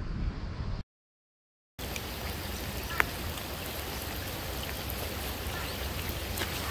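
Steady rain falling on a reservoir's surface and sandy shore, an even hiss, with one sharp tick about three seconds in. The sound drops out to silence for about a second near the start.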